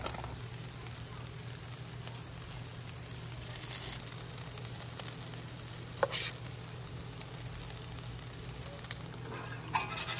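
Corn tortillas frying in oil on a hot flat-top griddle, a steady sizzle. A single sharp clink about six seconds in, and a metal spatula scraping the griddle steel near the end.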